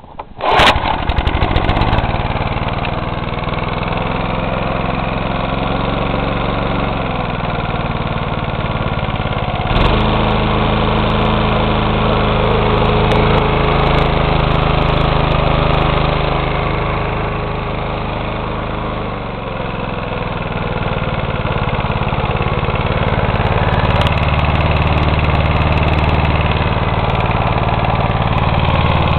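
Briggs & Stratton 3.5 hp single-cylinder four-stroke engine on a Toro rotary lawn mower, pull-started by its recoil starter and catching at once, then running steadily. Its speed rises about ten seconds in and drops back near twenty seconds; the owner rates the engine in good condition and not burning oil.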